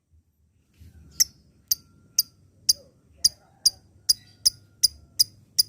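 Lovebird calling a run of short, sharp, high-pitched chips, about two to three a second and quickening slightly, starting about a second in.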